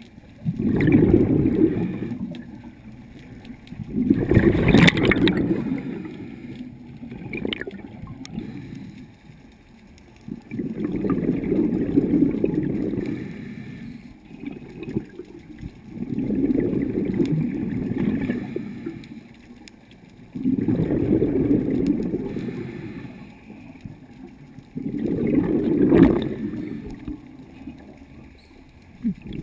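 Scuba diver breathing through a regulator, heard underwater: six bursts of exhaled bubbles gurgling, about one every four to five seconds, with quieter pauses between.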